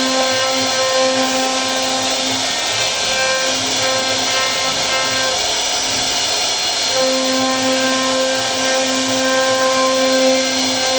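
CNC router spindle running steadily while cutting wood, a constant hiss with a humming tone that comes and goes as the bit works.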